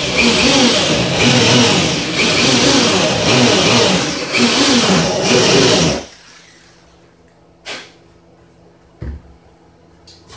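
Corded electric drill running hard into a wooden panel in a series of surges about a second apart, its motor pitch dipping as it bites, then stopping about six seconds in. A couple of light knocks follow.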